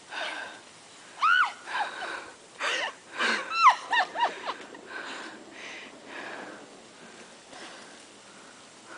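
Short high-pitched squeals, one about a second in and a quick cluster around three to four seconds in, among breathy gasps and soft rushes of noise.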